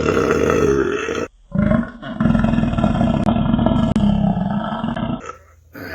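A man's loud belch, then after a brief gap a second, longer belch of about three and a half seconds: a double burp.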